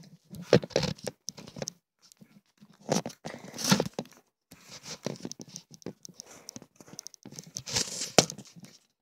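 Phone being handled and moved about close to its microphone: irregular rustling, scraping and knocks.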